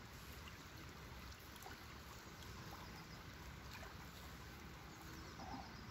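Faint, steady outdoor background of wind rumbling on the microphone, with a few small clicks near the middle.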